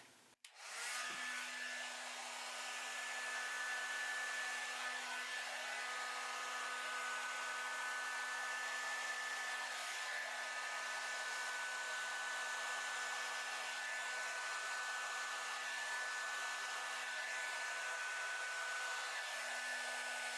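Handheld blow dryer switched on about a second in and running steadily: an even rush of air with a steady motor hum and whine, blowing poured acrylic paint across a canvas.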